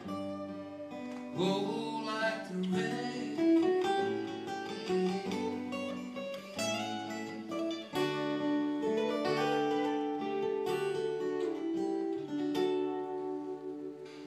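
Guitars playing the instrumental ending of a slow song: a picked lead guitar line over chords, running on without pause.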